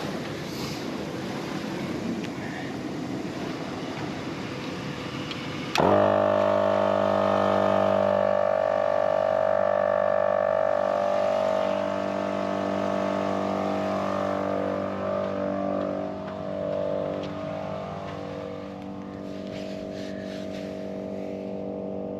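Wind noise at first, then about six seconds in a Morrflate 10.6 12-volt air compressor switches on and runs with a steady motor hum, pumping air into four tires at once to raise them from about 15 to 35 psi.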